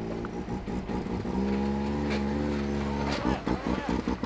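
Can-Am Maverick X3 UTV engine running under load, climbing a steep rock ledge. It is held at steady revs, then wavers unevenly for about a second near the end before settling again.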